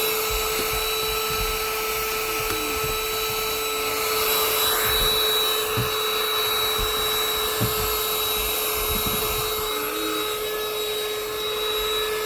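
Small car vacuum running at a steady pitch, a constant motor whine with airflow hiss, sucking up loose debris. Occasional low knocks come from the nozzle bumping along.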